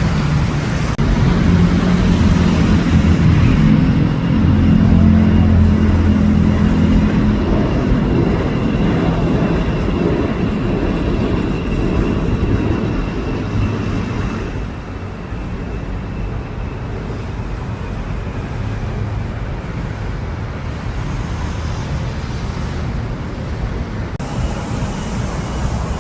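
Road traffic: running vehicle engines and tyre noise. A low engine drone is loudest in the first half and eases off about halfway through, leaving a steadier traffic rumble.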